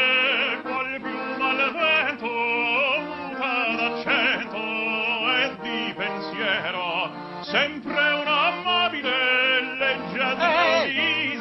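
Operatic-style singing with a strong, wavering vibrato over a steady held accompaniment.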